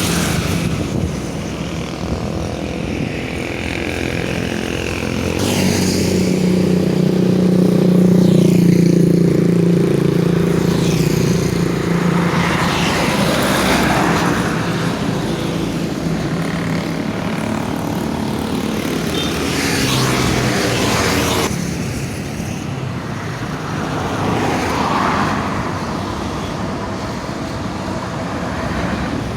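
Road traffic with large vehicles passing. Through the middle, a PJB Perkasa bus's ship-style air horn sounds one deep, steady tone for many seconds, loudest about eight seconds in.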